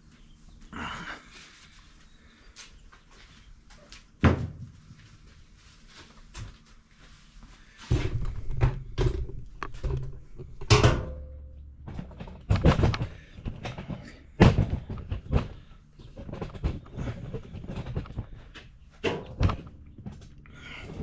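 Shop handling noises: a scattered series of knocks and thunks as tools and parts are set down and moved about, with a low rumble through the middle stretch.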